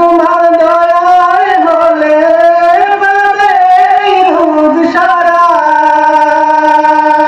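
A man singing solo into a microphone, one voice winding through an ornamented melody and then holding a single long note through the last couple of seconds.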